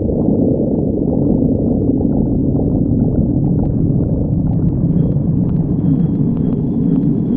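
Stomach growling: a continuous low rumbling and gurgling, with small clicks joining in about halfway through.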